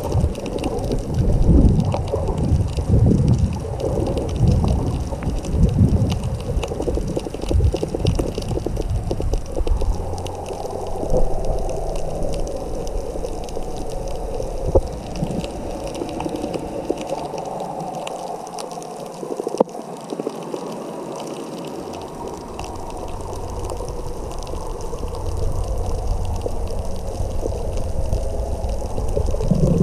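Muffled water movement recorded underwater, with uneven low surges in the first eight seconds or so, then a steadier wash.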